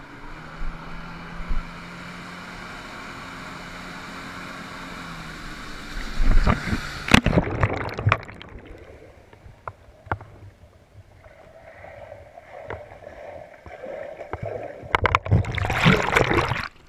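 Jet ski engine running steadily, then a loud splash about six seconds in. Quieter, muffled water sounds with scattered knocks follow, and another burst of loud splashing comes near the end.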